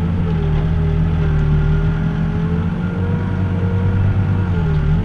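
New Holland B95 backhoe loader's diesel engine running steadily, with a fainter whine that wavers slightly in pitch.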